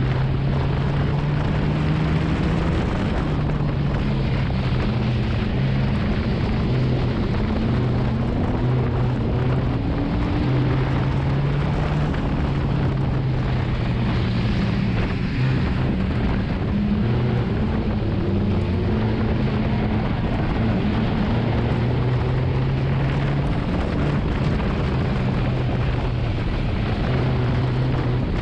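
Enduro race car's engine heard from inside the stripped cabin, running hard with its pitch climbing and dropping again and again as the throttle is opened and lifted, over a steady rush of road and wind noise.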